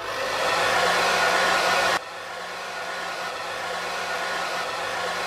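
Electric blower running steadily: a rushing air noise over a low motor hum. It starts abruptly, drops sharply in level about two seconds in, and carries on.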